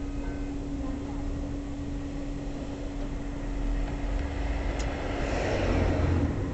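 A vehicle passing on the street, its rushing noise swelling in the second half and then cutting off suddenly near the end, over a steady low hum.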